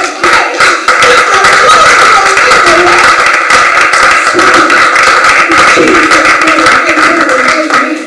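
Church congregation clapping hard and cheering in praise: dense, fast applause with raised voices, dropping away just before the end.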